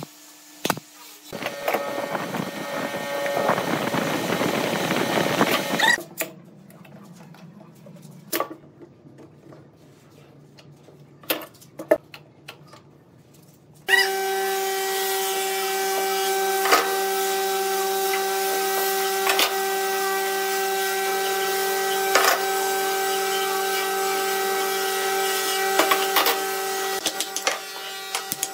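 A steady machine hum with several fixed pitches runs through the second half, broken every two to three seconds by sharp knocks from a wooden mallet tapping a clamped, glued pine block. Before that come a few seconds of rising hissing noise, then a quieter stretch with scattered clicks.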